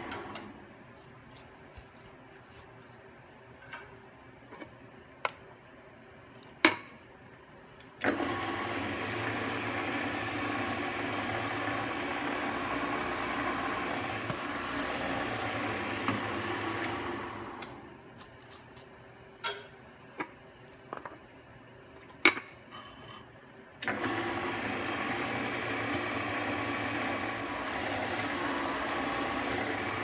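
Benchtop drill press running as a number 36 bit drills screw holes in an aluminum block, with a steady motor sound. It stops just after the start, starts up again about eight seconds in, runs down at about seventeen seconds and starts again at about twenty-four; in the pauses there are scattered clicks and knocks of metal on metal.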